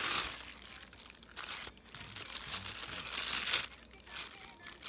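Bubble wrap and a plastic pouch crinkling and rustling as a camera body is unwrapped by hand, in several bursts, loudest right at the start and again around three seconds in.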